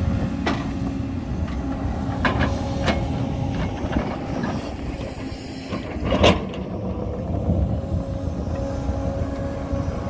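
JCB tracked excavator running steadily under load while its bucket teeth scrape through broken stone and earth, with several sharp knocks of steel on rock, the loudest about six seconds in.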